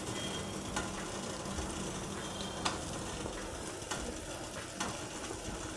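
Water boiling in a small steel pot holding medu vadais, a steady bubbling hiss, with a few light clinks of a steel ladle.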